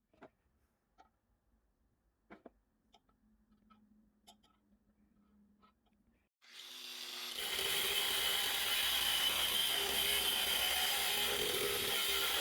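A few faint clicks and knocks of handling, then about halfway in a power tool starts up, builds over about a second and runs steadily: a loud, rough noise with a steady high whine in it.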